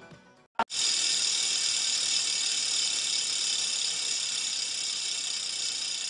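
A small geared motor, likely the display turntable turning the model bicycle, whirring steadily with a fine ratchet-like chatter. It starts just after a sharp click about half a second in.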